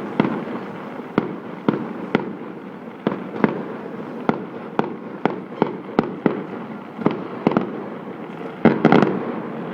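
Fireworks going off in quick succession: sharp bangs, two or three a second, over a steady rumbling crackle, with a rapid cluster of the loudest bangs shortly before the end.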